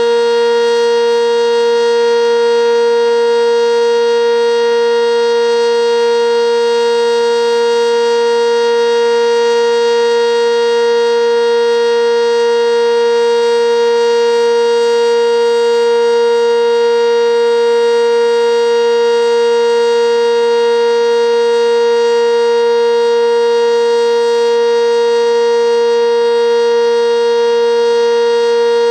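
Sentry 10V outdoor warning siren sounding its steady alert signal: one loud, unwavering pitch with strong overtones that holds without rising or falling.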